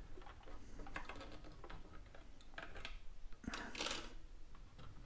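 Faint small clicks and scrapes of a bent wire coat-hanger hook poking around inside the fuel tank of a Stihl BG 86 leaf blower, fishing for the fuel pickup body. A slightly louder brief rustle comes about three and a half seconds in.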